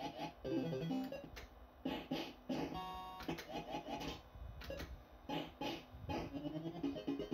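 Barcrest Alphabet fruit machine playing its electronic tunes and beeps as the reels spin and stop, with sharp clicks in between. Near the end comes a quick run of repeated notes.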